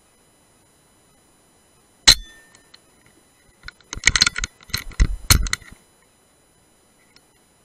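A single sharp shot from a silenced PCP air rifle about two seconds in, followed by a brief metallic ring. Then, from about three and a half seconds in, a couple of seconds of metallic clinking and clattering.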